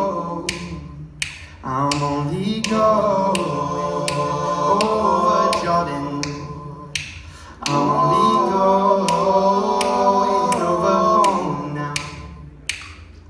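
Male a cappella singing in layered vocal harmony, the chords held and shifting in long phrases. A sharp click marks each beat, a little under twice a second.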